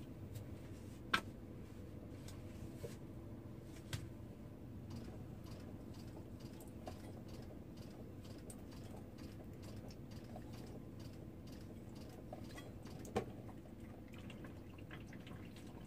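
A faint thin trickle of water from a kitchen faucet, used for rinsing hands and a knife, over a steady low hum. A few light clicks and knocks of handling at the counter come about a second in, around four seconds in, and near the end.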